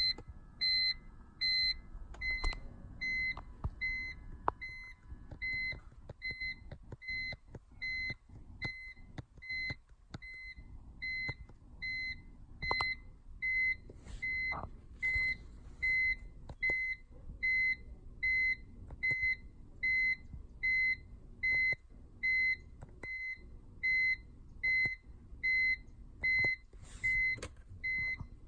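Electronic beeper sounding a short, high, even-pitched beep over and over, about four beeps every three seconds, with faint clicks and knocks underneath.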